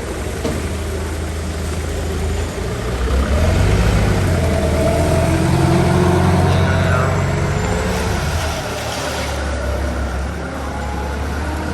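A large vehicle's engine running, swelling louder for several seconds in the middle, then easing back to a steady run.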